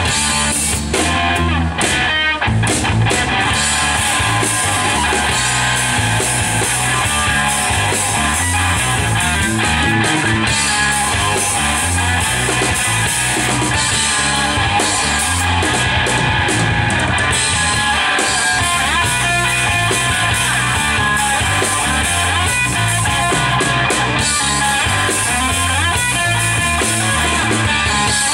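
A rock band playing live: electric guitar, electric bass and drum kit together, loud and unbroken.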